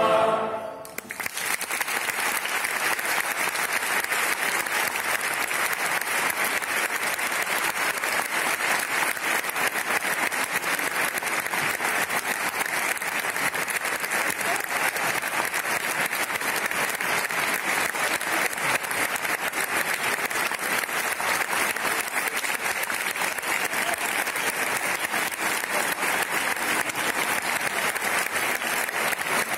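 A choir's held final chord cuts off right at the start, and about a second later an audience breaks into steady applause.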